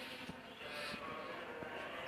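Cockatiel giving a short high chirp about three quarters of a second in, with a few faint clicks.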